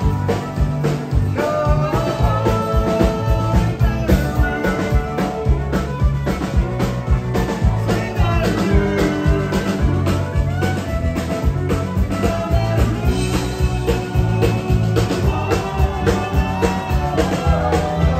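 Live country band playing a song with a steady beat: fiddle over acoustic and electric guitars, bass and drums.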